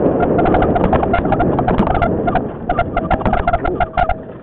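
Mountain bike rattling over a bumpy dirt forest trail, with rapid irregular clicks and knocks over wind rush and a steady whining tone underneath. The rush of noise eases off about two and a half seconds in.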